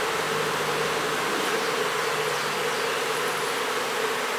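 Honeybees from an open hive buzzing in a steady, even hum. The beekeeper judges this colony to sound queenless.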